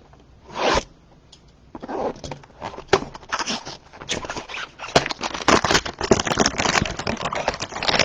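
Plastic wrapper of a trading-card hanger pack being torn open: a short rip just under a second in, then several seconds of dense crinkling and crackling.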